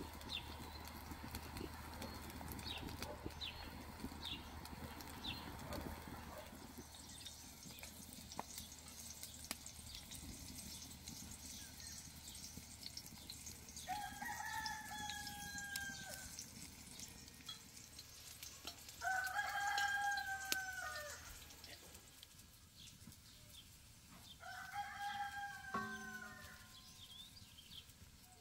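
Rooster crowing three times, each crow about two seconds long and a few seconds apart. An even hiss fills the first few seconds, before the crowing.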